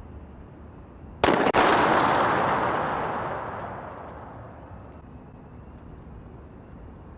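A single shot from a 9mm handgun firing a live round, a sharp crack about a second in with a second sharp stroke right after it, followed by a loud noisy rush that fades away over about three seconds.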